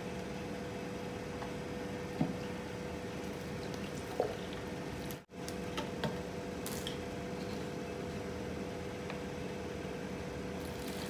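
Vinegar being poured between plastic containers, a trickle of liquid over a steady hum, with a few light clicks of plastic being handled. The sound cuts out for an instant about halfway.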